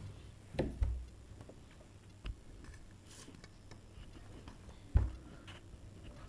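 Quiet eating sounds of chicken curry and rice: scattered soft clicks and taps, with a couple of low thumps just under a second in and again about five seconds in.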